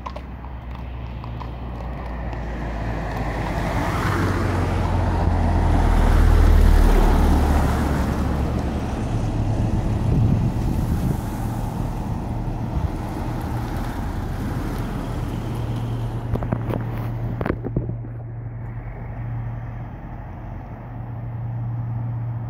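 Road traffic passing close: vehicle engines and tyres build to a loud peak about six seconds in and ease off. Then the steady low hum of cars moving slowly settles in.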